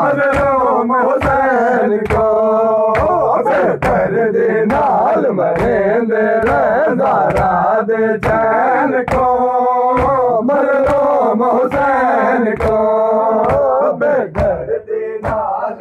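Men's voices singing a mournful noha (Muharram lament) in a chanting style, over rhythmic matam: hands striking chests in unison about twice a second.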